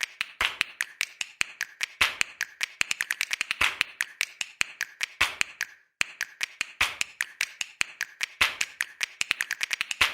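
A fast rhythmic pattern of sharp clicks and taps, with a heavier hit about every second and a half. It cuts out briefly about six seconds in and then starts again.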